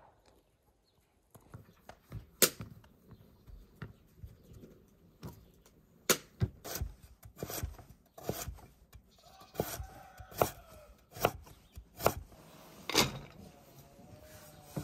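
Chef's knife chopping slices of orange vegetable into sticks on a wooden cutting board: irregular sharp knocks of the blade on the board, about one or two a second, starting a second or so in. A faint wavering tone comes in twice in the second half.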